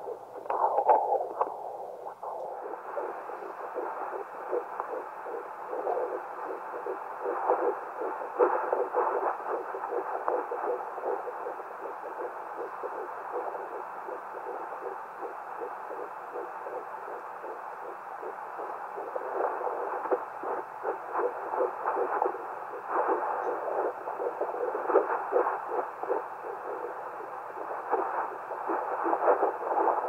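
Fetal heartbeat through the speaker of a Hi-bebe (Bistos) handheld ultrasound fetal Doppler: a fast, rhythmic whooshing pulse at about 157 beats a minute, the heart of a fetus at 10 weeks 6 days.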